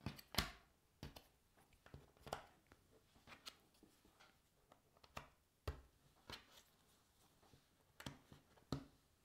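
Cardboard jigsaw puzzle pieces being picked up, handled and set down on the puzzle and a wooden tabletop: faint, irregular clicks and taps, the loudest about half a second in.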